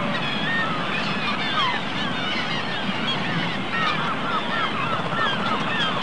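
A large flock of wild geese honking, with many short calls overlapping continuously over a steady hiss.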